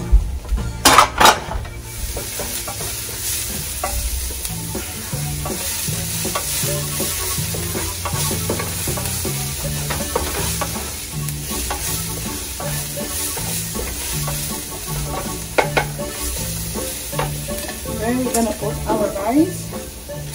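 Oil sizzling and frying in a skillet while a wooden spatula stirs and scrapes sautéed onion and garlic around the pan, with a couple of sharp knocks about a second in.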